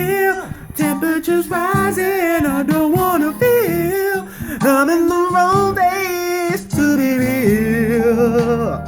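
Music: a voice singing a sliding melody, ending on a held note over a steady low accompaniment during the last second or so.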